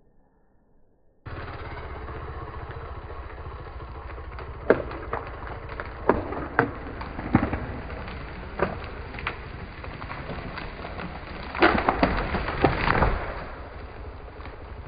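A dead tree cracking and snapping as it is felled: a string of sharp wood cracks, heaviest and closest together about twelve seconds in as the trunk gives way, over an engine running steadily.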